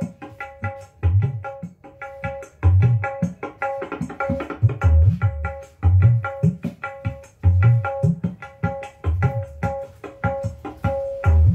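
Percussion-driven music with deep, regular bass thumps played loud through a 10-inch ACR Fabulous loudspeaker powered by a TY200 USB active speaker module.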